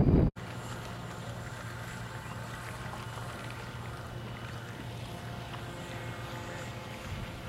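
Radio-controlled model boat's motor humming steadily. It opens with a brief low wind rumble on the microphone that cuts off abruptly.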